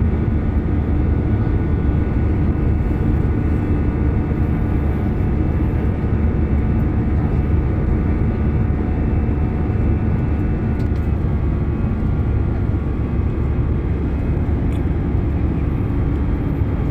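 Airliner engines running steadily at takeoff power, heard from inside the cabin: a loud, steady low rumble with several steady high whining tones.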